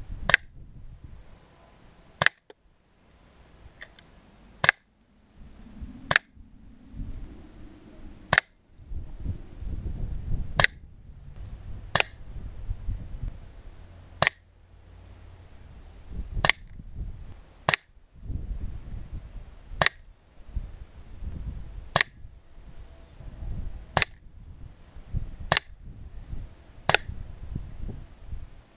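BSA Scorpion Mark II .22 spring-piston air pistol being fired repeatedly at a target: a string of about sixteen sharp cracks, roughly one every one and a half to two seconds, with low wind rumble and handling noise between.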